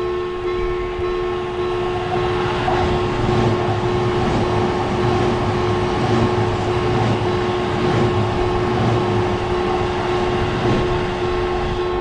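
Train running past: a steady rumble and rail noise with a steady two-note hum over it.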